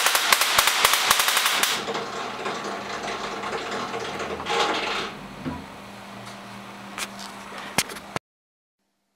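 Rotary spark gap Tesla coil firing: a loud, rapid crackling buzz of sparks that stops about two seconds in. After it comes a quieter steady hum with a few sharp clicks, and the sound cuts off abruptly near the end.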